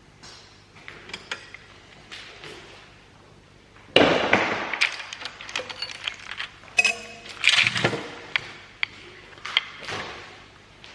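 Metal tools and parts clinking and clattering as they are handled, with a loud sudden clatter about four seconds in and several ringing metallic clinks a few seconds later.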